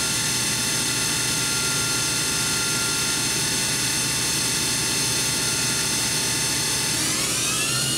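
Kitamura Mycenter 2X vertical machining center spindle running at 5,000 RPM with a steady whine. About seven seconds in, it starts speeding up toward 8,000 RPM and the whine rises in pitch.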